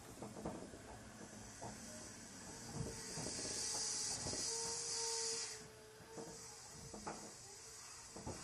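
Odakyu 8000-series train (set 8059F) with a steady hiss of air. The hiss starts about a second in, cuts off suddenly after about four seconds, then starts again, over scattered clicks and knocks and a brief faint tone in the middle.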